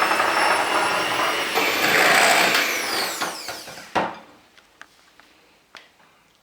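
Electric whisk running in a bowl of batter, then switched off: its pitch falls as the motor winds down over about a second, ending in a knock about four seconds in. A few faint clicks follow.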